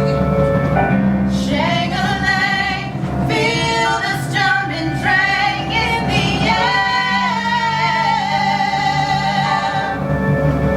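Music: a woman singing a melody over instrumental accompaniment with steady low notes underneath.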